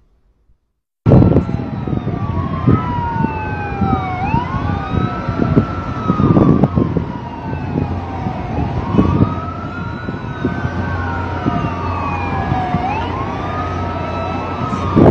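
Several emergency sirens wailing at once, their tones rising and falling and overlapping, over heavy low rumbling noise with scattered knocks; it all starts suddenly about a second in.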